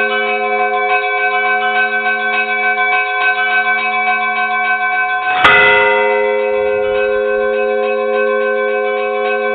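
Church bells ringing in a rapid peal: quick repeated strokes of several bells over lasting, overlapping tones. About halfway through, one loud heavy strike rings out and slowly dies away under the peal.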